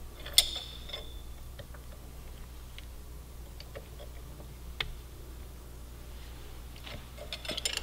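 Sparse metallic clicks and ticks from a chain press tool and wrench as the tool's drive screw is turned to press the side plate onto a motorcycle chain's master link. One sharper clink with a brief ring comes about half a second in, faint single ticks follow, and a quicker run of ticks comes near the end.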